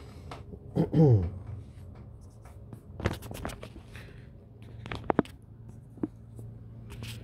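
Small sharp clicks and taps of plastic miniatures and their packaging being handled on a tabletop: a few around the middle, a quick group of three later on, and one more near the end. About a second in, a brief low vocal 'mm' falling in pitch is the loudest sound.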